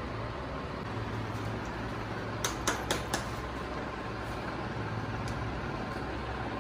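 Steady low room hum with a quick run of four or five sharp clicks about two and a half seconds in, as makeup containers and a brush are handled.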